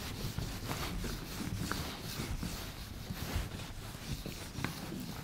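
Whiteboard duster rubbed back and forth across a whiteboard, a soft scrubbing with a few light taps.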